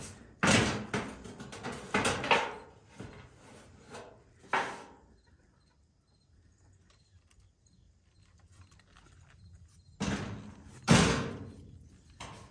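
Loud clattering knocks from sheets of old roofing tin being handled and set down: a cluster of crashes in the first few seconds, a quiet pause, then two more heavy clatters near the end.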